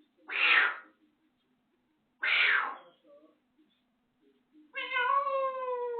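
African grey parrot mimicking sounds: two short, harsh, cough-like bursts about two seconds apart, then near the end a long imitated cat meow that falls slowly in pitch.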